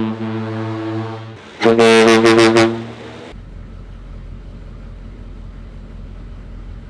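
Cruise ship horn mounted on a Humvee sounding a long, deep blast that fades out about a second and a half in. A shorter, louder and brighter blast follows. From about three seconds in, only a low steady vehicle rumble remains.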